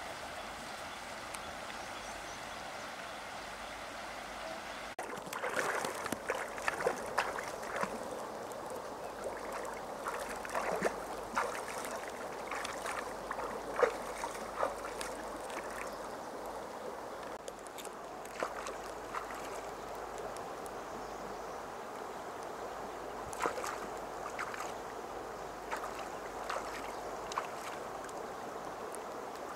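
River water running steadily, with irregular splashing and sloshing from about five seconds in as hands work in the shallow water over a pan.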